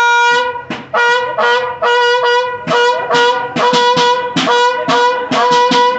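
A horn blown on a single note in a quick, rhythmic run of short and longer blasts.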